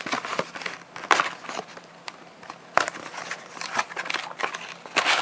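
Foil Pokémon card booster pack wrappers crinkling and crackling in the hands as packs are handled and torn open, with irregular sharp crackles and a few louder snaps, about one, three and five seconds in.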